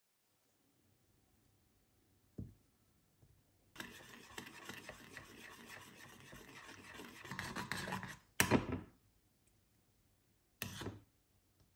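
Metal spoon stirring a thick soy-and-ketchup sauce in a ceramic bowl, scraping against the bowl for about four seconds, preceded by a soft knock. Two sharp clinks of the spoon against the bowl follow, the loudest sounds, about two seconds apart.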